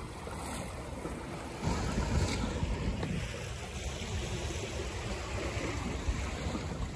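Wind buffeting the microphone over water rushing and splashing past the hull of a small sailboat, a Buccaneer 18, under sail in a gusty breeze. The rush gets a little louder just under two seconds in.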